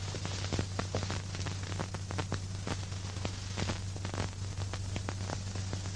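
Steady hiss and a low mains-type hum with scattered faint crackles, the background noise of an old film soundtrack, with no speech or music.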